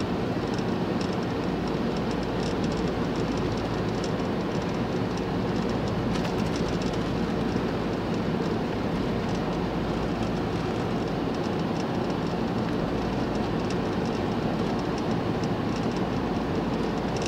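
Steady road and engine rumble of a van cruising at speed, heard from inside the cab, unchanging throughout.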